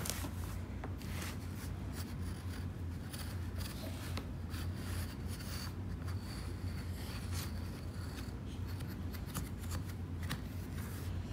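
Chalk stick scratching on cardboard in short, irregular strokes as it is traced around the inside of a plastic stencil, over a steady low hum.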